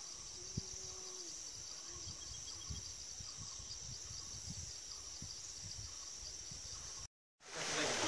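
Insect chorus: a steady, high, finely pulsing trill. Near the end it cuts off suddenly, and after a brief silence a louder rush of running water begins.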